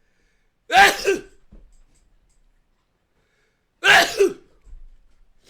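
A person sneezing loudly twice, about three seconds apart, in an unusual voiced way; each sneeze comes in two quick parts.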